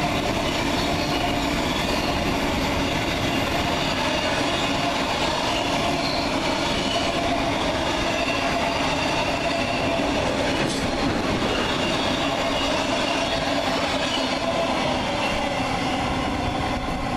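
Intermodal container freight wagons rolling past, a steady rumble of steel wheels on the rails with a faint wavering whine from the wheels on the curve.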